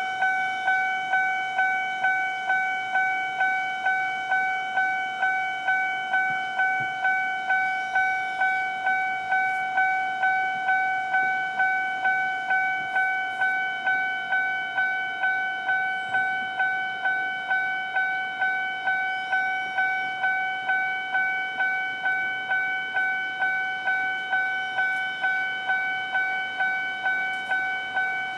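Railway level-crossing warning bell ringing, a single clanging tone repeated about two and a half times a second without a break: the signal that a train is approaching the crossing.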